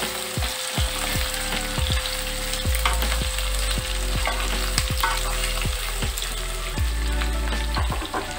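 Chunks of beetroot, carrot and potato sizzling in mustard oil in a non-stick kadai over medium heat. A wooden spatula stirring them knocks and scrapes against the pan again and again.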